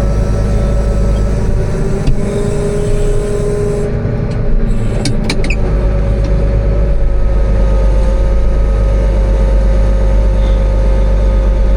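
Farm machinery engine running steadily under load as the forage chopper is moved, with a few brief knocks about five seconds in.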